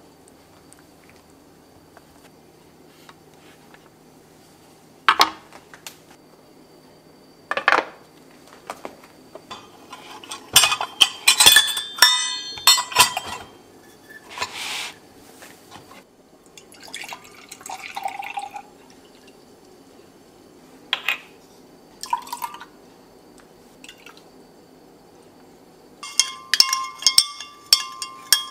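Kitchen handling sounds: scattered knocks and clicks of utensils, a run of ringing metal clinks in the middle, then a metal spoon stirring milk and clinking against a glass measuring jug near the end.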